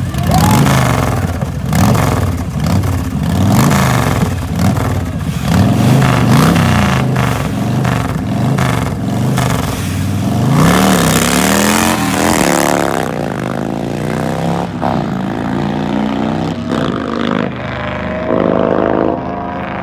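A car engine revved over and over, its pitch rising and falling about once a second. About ten seconds in, an engine accelerates hard, rising in pitch with a loud rush, then its note falls away and fades.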